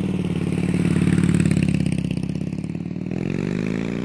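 Motorcycle engine running with a fast, even firing pulse, then revving up, its pitch rising near the end.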